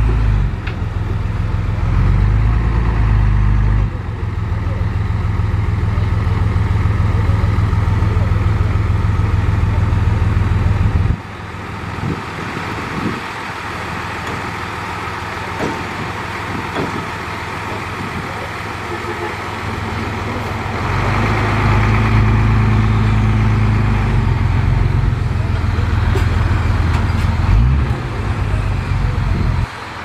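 Diesel engine of a dump truck running at raised revs while the tipper bed is worked, dropping to a quieter idle about eleven seconds in, then revving up again around twenty-one seconds in.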